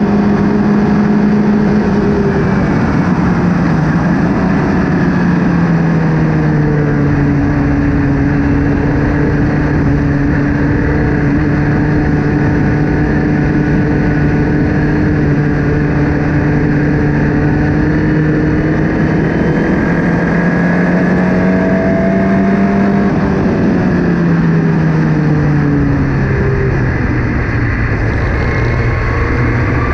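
Formula Ford race car engine running hard, its pitch holding steady for long stretches, dropping a few times and climbing again near the end, over a steady rushing hiss.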